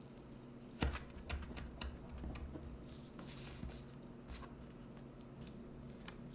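Kitchen handling sounds while making scones: a sharp knock a little under a second in, then light taps and clicks and a brief scrape or rustle.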